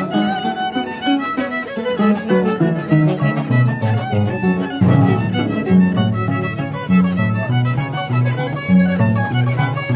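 Live music from a Peruvian orquesta típica playing a dance tune: several held melody notes over a stepping bass line with a steady beat.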